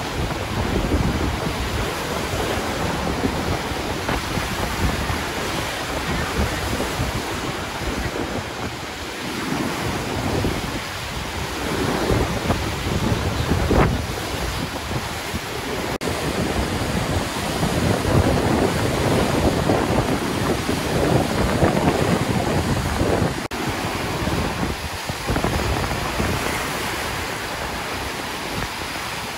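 St. Louis River rapids in spring flood, swollen by snowmelt and storms, roaring steadily as the whitewater races over the rocks. Wind buffets the microphone, making uneven low surges.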